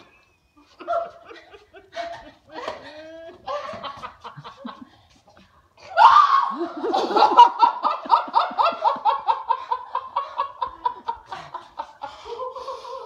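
People laughing: a few short chuckles at first, then about six seconds in a long fit of laughter in quick, even ha-ha pulses that slowly drop in pitch and die away.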